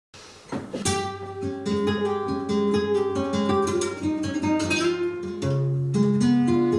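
Two flamenco guitars playing together: plucked melody notes over held chords, cut by sharp strummed chords, coming in about half a second in.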